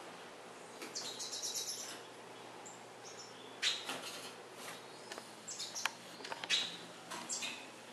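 Caged finches (pintassilgos) chirping and twittering: a quick run of high twitters about a second in, then scattered short chirps, the brightest around four seconds and six and a half seconds in. There is a single sharp click about six seconds in.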